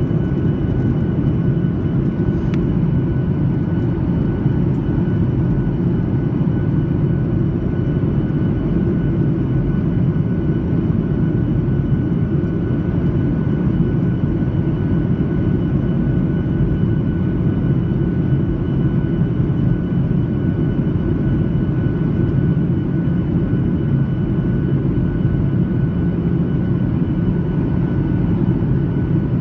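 Steady cabin roar of a Boeing 737 jet airliner's engines and airflow, heard from a window seat during descent. A faint steady high whine rides on top of the roar.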